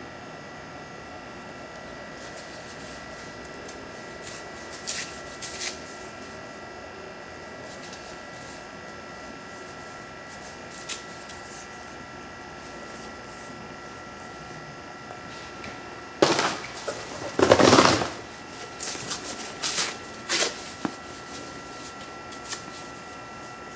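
BioLite camp stove burning wood, its small fan running with a steady faint whine. Sticks clatter and knock in the metal burn chamber several times, loudest in a cluster about two-thirds of the way through.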